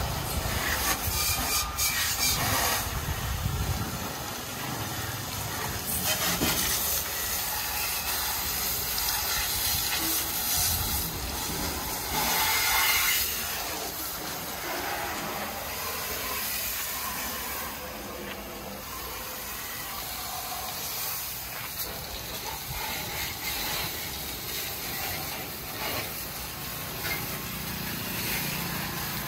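High-pressure water jet from a pressure-washer wand hissing steadily as it sprays a tractor's metal bodywork and tyres, swelling and fading in loudness as the jet moves.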